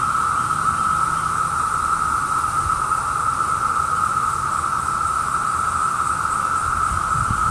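Chorus of Brood II periodical cicadas (Magicicada): many males calling together in one steady, unbroken high drone, with a low rumble underneath.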